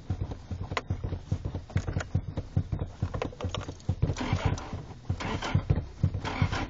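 Car engine turning over on the starter motor, a fast, even chugging that does not catch, while the accelerator is pumped.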